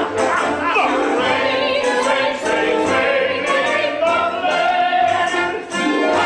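Musical-theatre song: several voices singing together over an orchestra.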